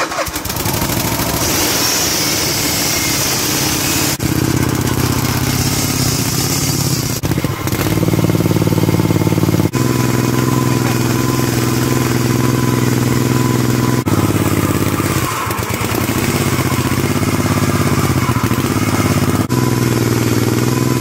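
25-horsepower V-twin engine with short stacks and homemade glass-pack mufflers running steadily on a log splitter, turning its hydraulic pump. The note breaks off sharply and shifts slightly a few times.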